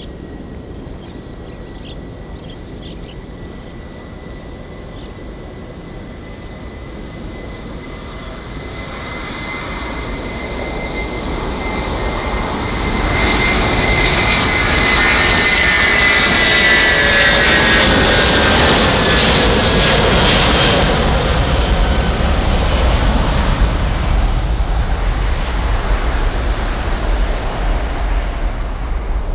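Airbus A330-300 jet engines at takeoff power on the takeoff roll. A steady high whine at first, then the noise builds as the airliner accelerates past, loudest a little past halfway, with the engine tones falling in pitch as it goes by.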